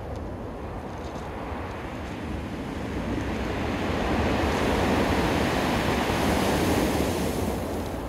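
Storm surf breaking on a pebble beach: a steady rush of waves that grows louder about halfway through as a big wave breaks, then eases near the end.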